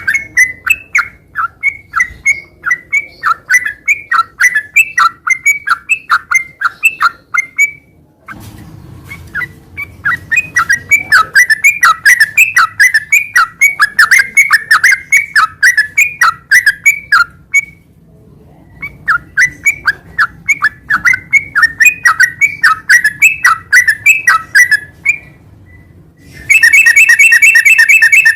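Yellow-vented bulbul singing long runs of quick chirping notes, about four a second, with two short breaks. Near the end it switches to a loud, fast rattling trill, the continuous 'ngeropel' song that is prized in a singing bulbul.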